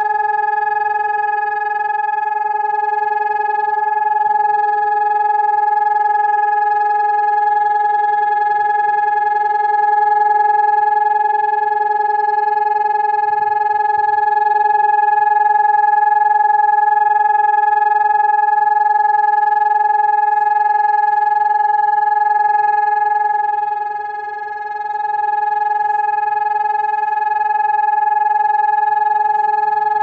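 SiRcom ESp 750 MAESTRO six-horn electronic siren sounding its steady test tone, one unwavering pitch with a rich set of overtones: the continuous tone of a siren test. Its loudness dips briefly about 24 seconds in.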